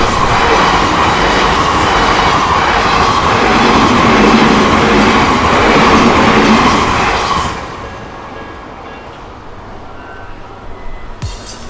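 Odakyu commuter train passing close by over a level crossing, its wheels clattering over the rails. The noise is loud for about seven seconds, then fades as the train moves away. Music starts abruptly right at the end.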